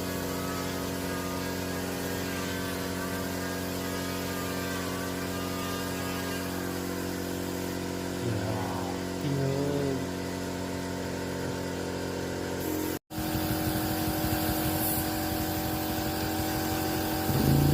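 A motor running steadily at constant speed, a continuous hum with several fixed tones. It cuts out for an instant about 13 seconds in, then carries on.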